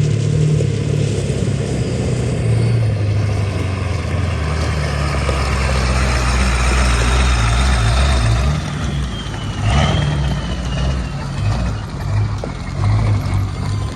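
Truck engine running loudly, its pitch rising and falling with changes in engine speed, with a faint whine that slowly falls in pitch over several seconds and a short burst of noise about ten seconds in.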